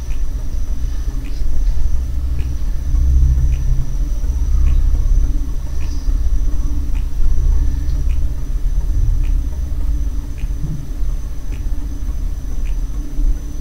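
Steady low rumble that swells and eases, with a faint high whine and a light tick about once a second.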